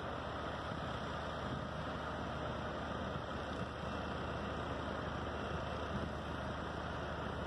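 Tracked excavator's diesel engine running steadily, a low hum under an even hiss of wind and surf.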